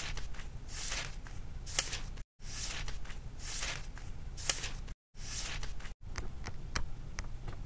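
Paper pages of a small book being turned and riffled: dry rustling with crisp page flicks, in four stretches that cut off abruptly, the last a quick run of flicks. A low hum sits underneath.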